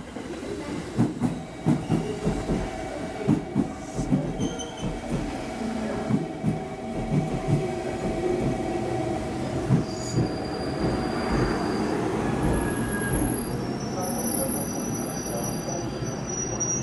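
Train arriving at the platform, wheels knocking irregularly over rail joints and points, then high-pitched wheel and brake squeal as it slows to a stop.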